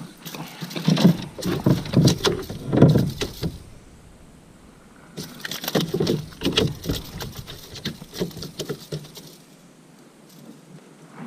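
Irregular knocks, thumps and rattles in a small boat, in two bouts of about three and four seconds.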